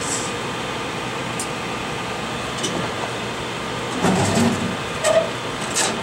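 Steady airflow hiss from a hot air rework station's blower. From about four seconds in it is broken by a few short handling noises and murmurs.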